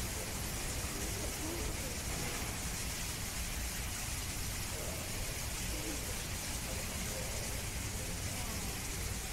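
Steady background hiss and low rumble, with faint distant voices talking now and then.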